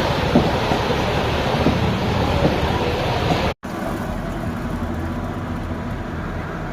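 Water rushing through a breach in a canal bank, a loud, steady rush of noise. It drops out for an instant about three and a half seconds in and comes back slightly quieter.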